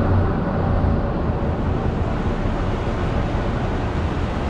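Bizon Rekord combine harvester's diesel engine running steadily at a low hum while the combine slowly reverses.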